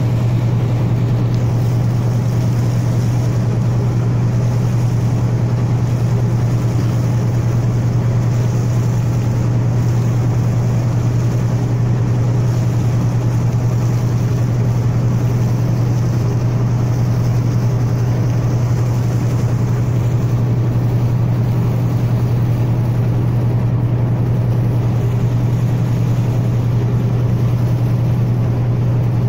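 A ship's engine running: a steady low drone that does not change, with a faint hiss of wind and water over it for the first part.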